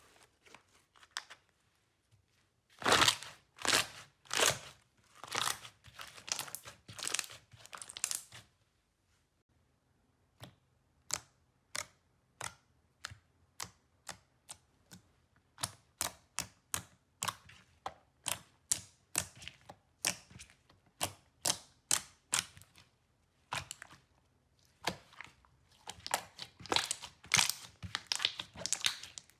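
Slime worked by hand, poked and squeezed, giving a long series of sharp wet clicks and pops about two a second. The pops are loudest a few seconds in and again near the end.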